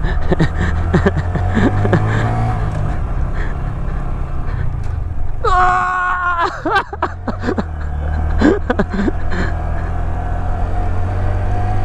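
A Honda Grom's 125 cc single-cylinder four-stroke engine running steadily while ridden off-road over rough, sandy ground, with many sharp knocks and rattles from the bike and its suspension hitting bumps. About halfway through there is a brief pitched cry.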